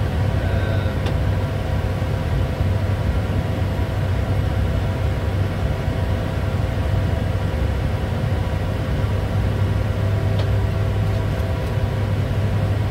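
Steady flight-deck noise of a Bombardier Challenger 350 business jet in flight: a constant rush of air with a strong low hum and a few faint steady tones over it.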